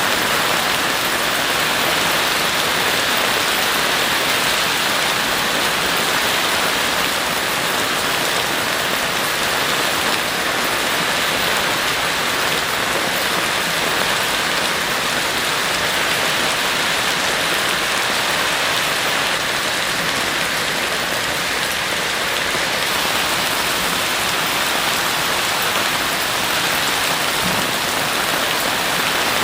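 Heavy rain falling steadily, an even continuous hiss of drops on surfaces with no distinct claps or pauses.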